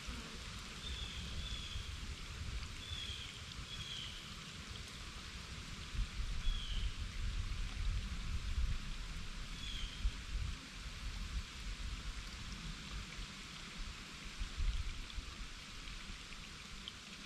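Shallow woodland creek trickling over rocks, a steady watery hiss. A bird gives about six short high chirps in the first ten seconds. Low wind rumble on the microphone swells a few times.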